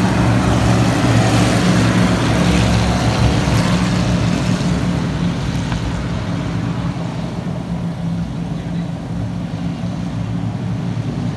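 A pack of stock cars racing past, engines running hard in a loud, steady drone. It is loudest in the first few seconds and fades after about the middle as the cars pull away down the track.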